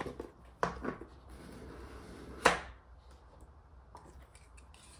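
Cardboard album packaging being opened and handled by hand. There are a few light knocks, a brief sliding rustle, then a sharp tap about two and a half seconds in, the loudest sound, and a few faint taps near the end.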